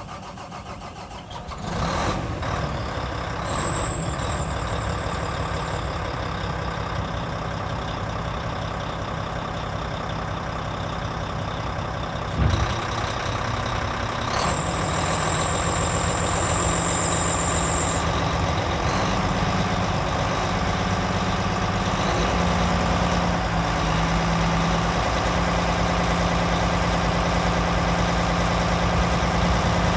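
Volvo A40D articulated dump truck's diesel engine catching about two seconds in and running steadily, with a single clunk near the middle. Later the engine runs at a higher, changing speed while the hydraulics tip the dump body up. A high steady electronic tone sounds twice, a few seconds each time.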